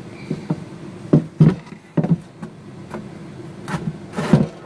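Steel blade of a Disston No. 4 back saw being handled over its plywood sheath and slid into it: a run of sharp clunks and knocks, then a longer scraping slide near the end as the blade goes into the sheath.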